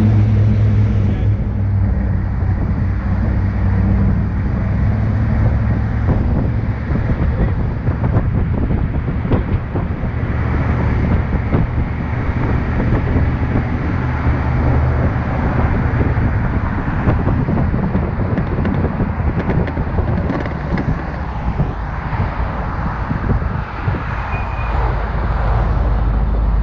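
Steady motor-vehicle running noise: a low engine hum with a constant wash of road and wind noise.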